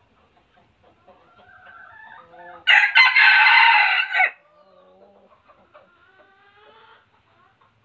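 Red junglefowl cock crowing once, a short crow of about a second and a half, a few seconds in, with softer calls before and after it.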